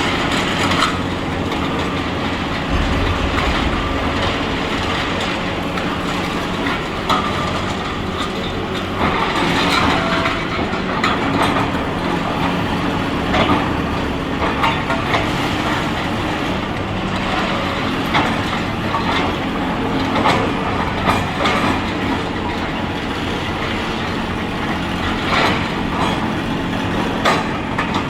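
Excavator diesel engine running steadily under load, with irregular cracks, crunches and knocks of demolition debris being broken and moved.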